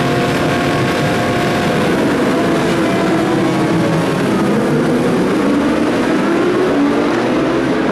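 A field of racing motorcycles on the starting grid, many engines running at once, their overlapping tones rising and falling as the riders rev and pull away.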